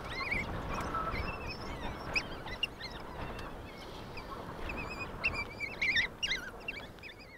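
African wild dogs twittering: many short, high, bird-like chirps overlapping as the pack greets one another, over a steady low background rumble. The chirping is busiest and loudest a little after five seconds in.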